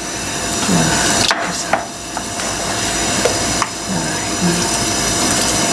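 Blanched cabbage leaves (ugeoji) being tossed and mixed with seasoning: a steady rustling with a few light knocks.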